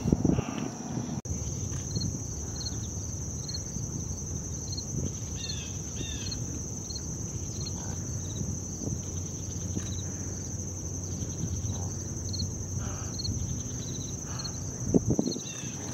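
Steady high-pitched insect chorus over a low background rumble, with a few short falling chirps about five to six seconds in.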